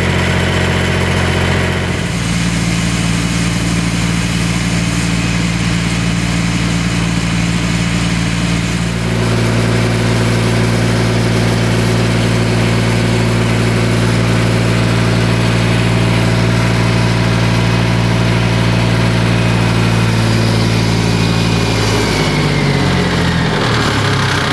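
Engine driving a brush truck's fire pump, running steadily under pump load and changing speed twice, about two seconds in and again about nine seconds in. Near the end its pitch slides down as the pump is throttled down.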